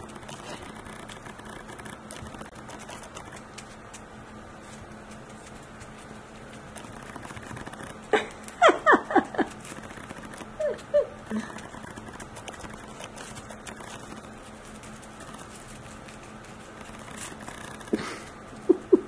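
Shih Tzu puppy chewing and worrying a small toy on a blanket: a continuous run of soft rustling, scratching and small clicks. About eight seconds in comes a quick cluster of short high-pitched squeaks, followed by a couple of brief faint tones.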